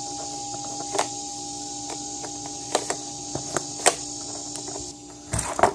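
Plastic Nerf gun parts being handled and fitted together: scattered sharp clicks and knocks, a few at first and a louder cluster near the end, over a steady background hum.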